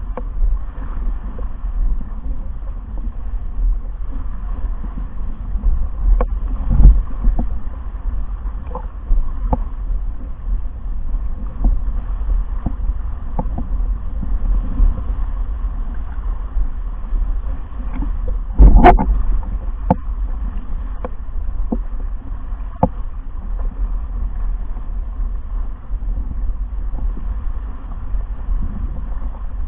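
Wind buffeting the camera microphone and water rushing past a windsurf board as it sails, a steady low rumble. Scattered knocks come through it, with a louder thump about 7 seconds in and the loudest about 19 seconds in.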